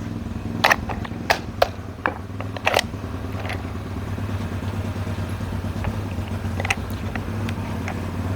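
An engine running steadily at idle, a low even hum, with a scattering of light sharp clicks and knocks, mostly in the first three seconds and again near the end.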